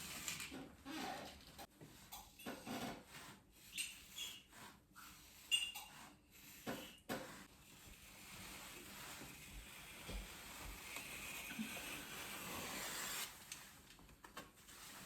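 Faint rustling, light knocks and scraping of fiberglass wall covering being handled and fitted on a wall, with a longer steady scraping stretch in the second half.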